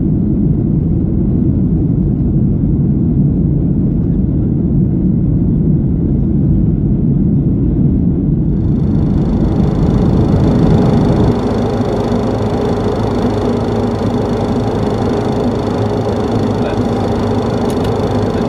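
Boeing 737 cabin noise on approach: a steady low rumble of engines and airflow. About eight seconds in, a brighter hiss joins; from about eleven seconds the rumble eases and a steady hum tone comes through.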